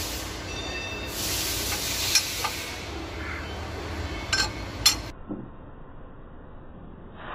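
Steady hiss with a few sharp metallic clicks, about two seconds in and twice more a little before five seconds, as a gloved hand works the valve rocker arms on a Deutz TD 2011 L04 diesel cylinder head during a valve-clearance check. Just after the last click the sound turns abruptly dull and muffled.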